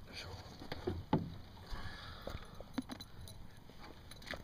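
Scattered light knocks and metal clinks of fishing gear being handled in an aluminum boat, with a few low thumps around the first second.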